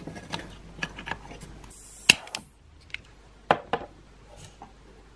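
Light metal clinks and taps as a homemade tin-can alcohol stove and its burner are handled inside the can stand. About two seconds in comes a short hiss ending in a sharp click, and about a second and a half later two more sharp clicks close together.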